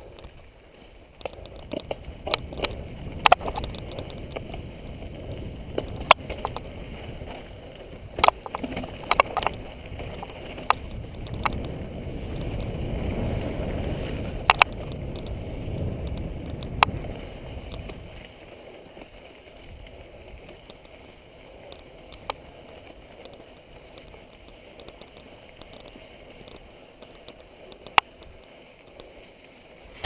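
Mountain bike rolling down a rocky dirt singletrack: a low rumble of tyres over the ground, broken by many sharp clacks and knocks as the bike jolts over rocks. The rumble eases after about eighteen seconds.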